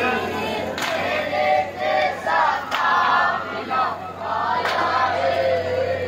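A crowd of men and boys chanting together in a melodic chorus, with a sharp beat about every two seconds.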